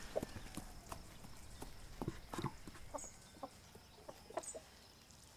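Farmyard hens clucking faintly now and then, with a couple of brief high bird chirps.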